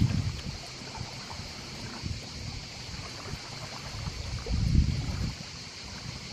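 Wind buffeting the microphone in gusts, strongest about four and a half seconds in, over small waves lapping on a pebble lakeshore and a steady high hiss.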